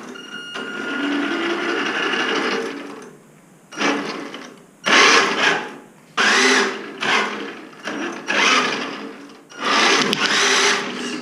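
Electric motor and gear drive of an HSP H100 short-course RC truck whining as it drives: one steady run of about three seconds, then about six short bursts of throttle. The motor pinion now meshes with the worn spur gear, so the truck drives again.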